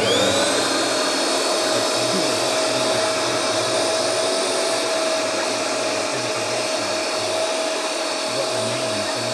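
Handheld vacuum cleaner with a hose attachment switched on: its motor whines up to speed within a moment, then runs steadily with a high whine over rushing air.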